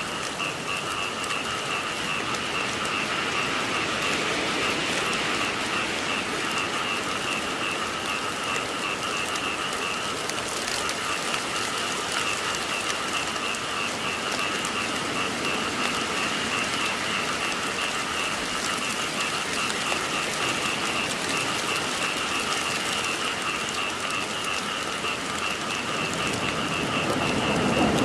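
Steady rainfall hissing, with a chorus of frogs calling in an even, pulsing drone throughout. A low rumble begins to build near the end.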